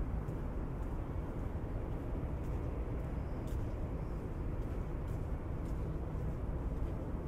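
Steady low rumble of urban outdoor background noise, with a few faint, irregular high clicks.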